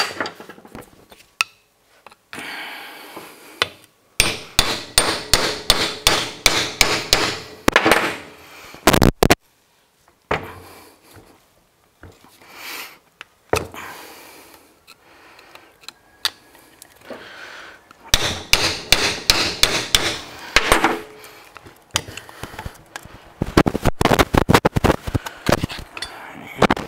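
Hammer blows on a tool held against a Landcruiser 60 Series rear wheel hub, coming in three runs of quick taps, about three a second, with quieter pauses between. The taps are driving the old rear seal out of the hub.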